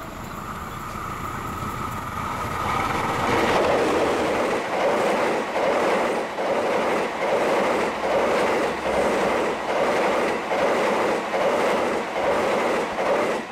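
Passenger train passing close at speed: a CC 201 diesel locomotive draws near and goes by, then a rake of 2016 INKA-built K3 economy coaches rushes past. The wheels clickety-clack over the rail joints, about one beat every two-thirds of a second. The sound cuts off suddenly at the end.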